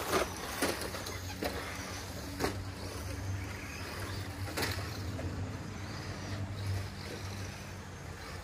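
Electric 1/10-scale RC rally cars running on a loose dirt track, under a steady low hum. A handful of sharp clicks and knocks are scattered through, the loudest just as it begins.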